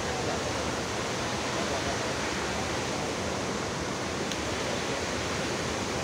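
Athirappilly Falls' water plunging onto the rocks below: a steady, even rush of falling water.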